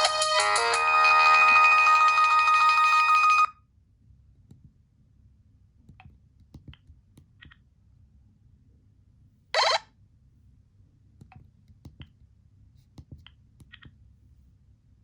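Motorola RAZR V8 ringtone: a polyphonic electronic melody from the phone's small speaker that cuts off suddenly about three and a half seconds in. Faint clicks follow, with one short electronic beep about ten seconds in.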